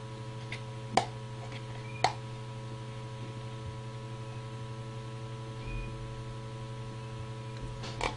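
Steady low electrical hum, with two light clicks about one and two seconds in.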